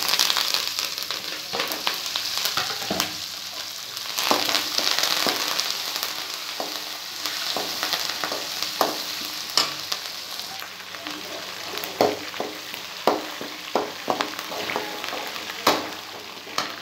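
Green chillies and curry leaves sizzling in hot oil in a metal kadai, a tempering with peanuts and dal. The sizzle is loudest in the first few seconds and then settles, while a perforated metal ladle stirs and scrapes. In the later part the ladle clinks sharply against the pan several times.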